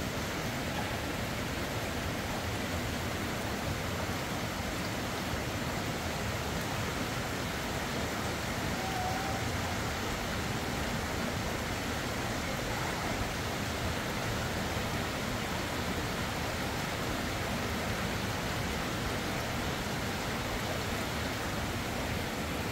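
Steady rushing noise, even throughout, with a brief faint whistle-like note about nine seconds in.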